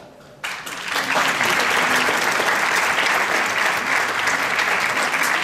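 Theatre audience applauding, a dense steady clapping that starts abruptly about half a second in.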